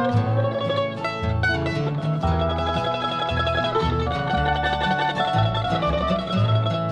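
Acoustic bluegrass band playing an instrumental break: a plucked-string lead runs quick notes over strummed guitar and a steady bass line.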